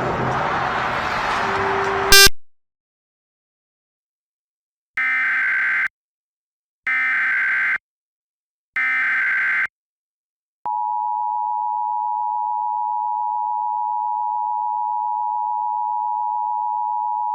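Emergency Alert System signal: three short bursts of SAME digital header data, each just under a second and about a second apart, then the steady two-tone EAS attention signal (853 and 960 Hz) starting about ten seconds in. Before it, a stretch of noise ends about two seconds in with a sharp loud crack and cuts to silence.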